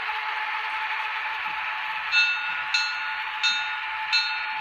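Märklin 37584 'Gläserner Zug' H0 model electric railcar running along the track with a steady whirring hum. From about halfway in, a short ringing ding repeats roughly every 0.7 seconds.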